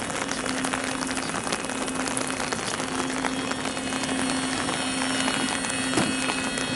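Rain pattering steadily, with a steady low hum underneath that drops out briefly a few times.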